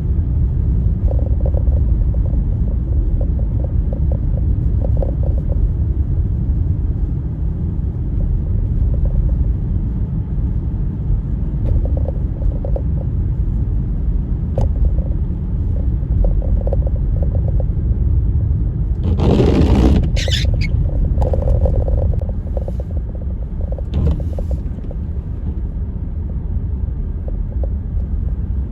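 Blizzard wind buffeting the microphone: a steady low rumble, with a short, louder burst of hiss about two-thirds of the way through and a few faint clicks.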